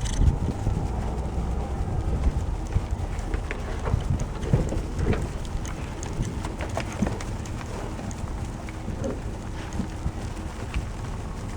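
Cattle moving close by, with scattered hoof knocks and a few short low calls over a steady low rumble.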